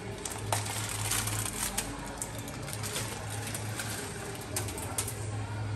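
Plastic instant-noodle packets crinkling and tearing open by hand, with irregular sharp crackles throughout.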